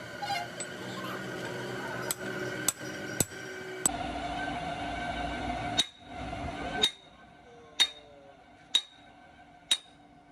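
A hammer striking metal about nine times, each blow ringing sharply: four in quick succession, then slower blows about a second apart. A steady hum underneath stops about seven seconds in.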